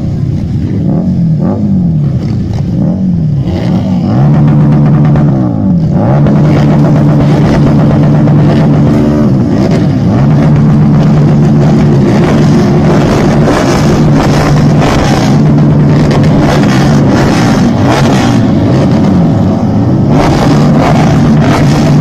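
Motorcycle engine revved hard again and again: its pitch climbs, holds high for a few seconds, then falls back, over and over. Other bikes can be heard running underneath.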